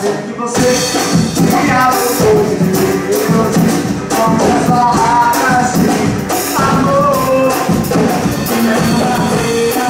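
Live band playing: a male voice singing into a microphone over a drum kit and hand percussion, with a shaker rattling throughout.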